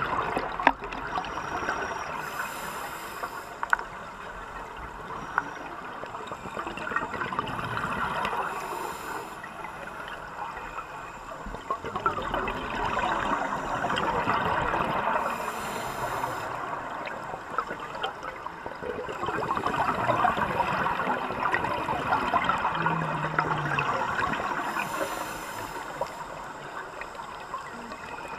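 Scuba diver breathing through a regulator underwater: a short hiss of each inhalation, then a long bubbling gurgle of exhaled air, repeating about every seven seconds.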